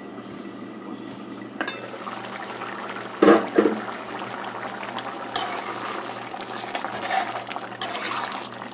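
A metal pot lid is lifted and set down with a loud clatter about three seconds in. Then shrimp curry bubbles at a simmer in the open aluminium pot, with a few lighter metal clinks.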